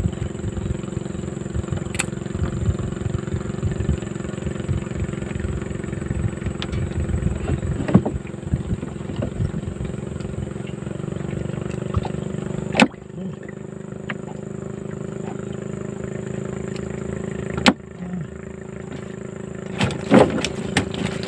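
Small boat engine running steadily, with a few sharp knocks; the engine gets quieter after knocks in the second half, and a quick run of knocks comes near the end.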